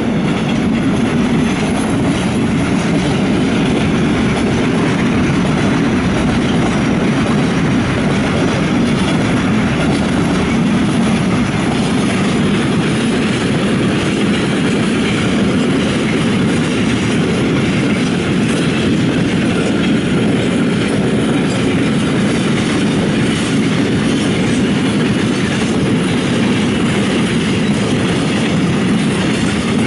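Intermodal freight train of container flat wagons rolling past at close range: a loud, steady, continuous rumble of wheels on the rails.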